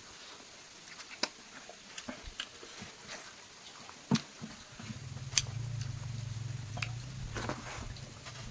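Eating sounds of chicken being chewed and picked apart: scattered soft clicks and ticks. A steady low hum comes in about five seconds in.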